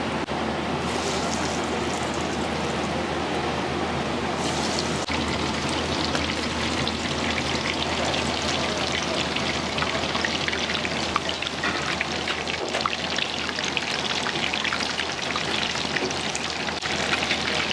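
Steady hissing with fine crackling from a busy restaurant kitchen at work.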